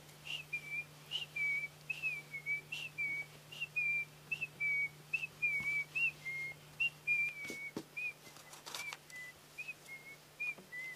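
Short, high whistled chirps repeated about two to three times a second, each dipping slightly in pitch, under a faint steady hum.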